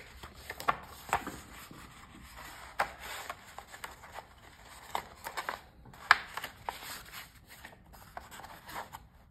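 Paper notebook being slid and pressed into the sleeves of a vinyl notebook cover: irregular rubbing and scraping of paper against plastic with light taps, and a sharper tap about six seconds in.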